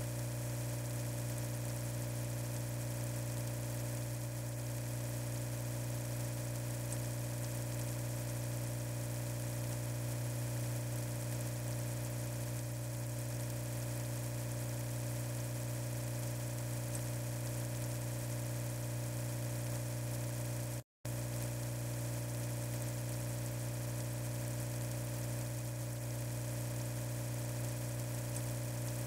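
Steady low electric hum, unchanging, broken only by a momentary cut to silence about 21 seconds in.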